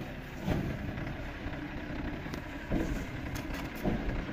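Eicher tractor's diesel engine running steadily under load as it hauls a water tanker up a muddy bank, with brief louder surges about half a second in and near three seconds.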